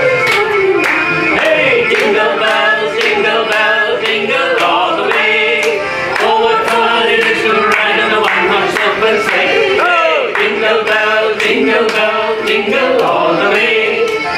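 Music: a song with several voices singing together over a steady beat.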